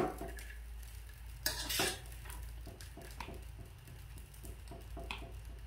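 Metal spatula scraping and scooping fried rice in a wok and tapping it into a plastic bowl: a run of soft scrapes and light clicks, with a few louder knocks about one and a half seconds in and again near the end.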